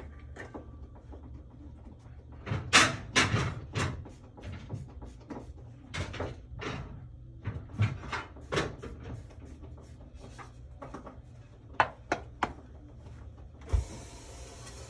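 A series of irregular sharp clicks and knocks, loudest about three seconds in and again near twelve seconds, then a steady hiss that starts about a second before the end.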